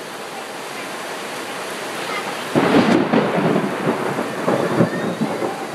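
Heavy rain pouring steadily. About halfway through, a loud rumble of thunder breaks in and rolls on for a few seconds.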